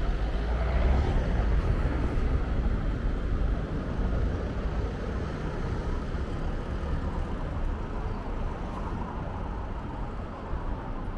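City street traffic noise: a steady low rumble that is louder for the first few seconds, then eases off.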